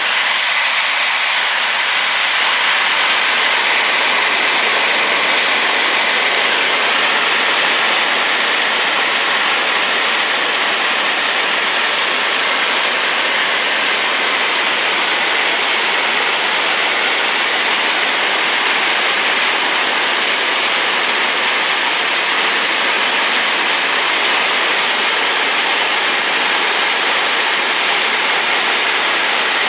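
Rain-swollen waterfall pouring steadily: a loud, unbroken rush of falling water, mostly hiss with little low rumble.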